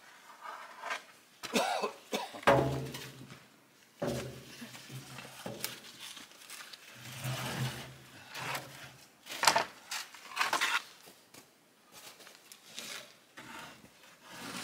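Irregular knocks and scrapes of wooden boards being handled against a plastic drum as it is loaded.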